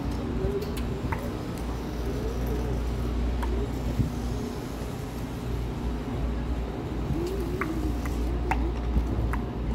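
Pedestrian city-street ambience: a steady low rumble with faint, wavering voices of passers-by and a few light clicks.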